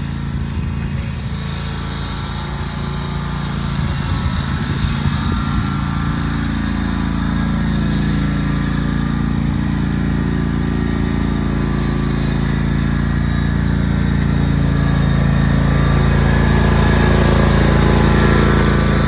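Riding lawn mower engine running steadily at mowing speed, with rough, uneven rumble for the first several seconds and growing slowly louder toward the end.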